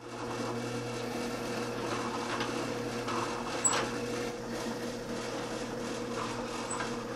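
Drill press running steadily, its motor humming while a twist bit bores through a wooden (MDF) band saw wheel.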